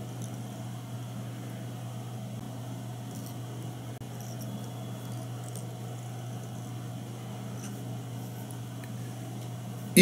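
Steady low hum with a few faint, short ticks.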